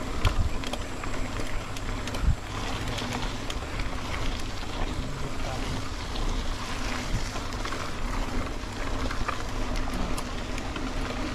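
A vehicle being driven over a compacted dirt road surface: a steady rumble of tyres and engine, with a few low knocks from bumps in the first couple of seconds.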